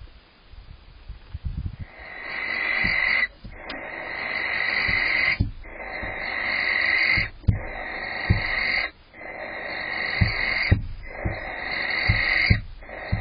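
Barn owl giving a run of long rasping hisses, the snoring call, about six in a row and each about a second and a half long, starting about two seconds in. Under them are soft low thumps of an owl stamping its feet on the nest box floor.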